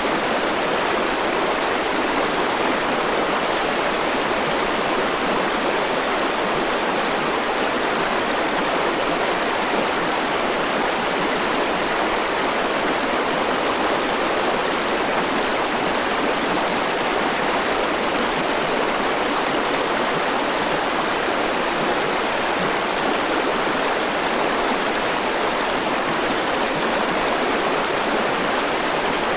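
River water rushing over boulders and small waterfalls, a steady, unbroken rush of white water.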